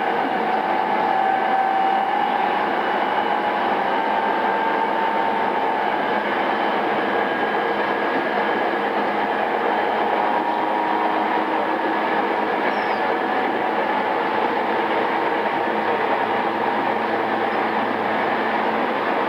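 Running sound of a JR East E217-series electric train in original, pre-renewal form, heard inside motor car MoHa E217-2006: steady wheel-and-rail running noise at speed with a few faint tones above it.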